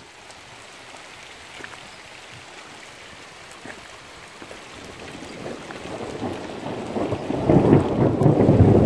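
Rain falling, then a long roll of thunder that swells from about halfway through and is loudest near the end.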